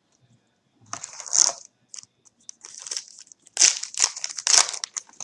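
Foil wrapper of a trading card pack crinkling in irregular bursts as it is handled and opened, loudest about a second in and again toward the end.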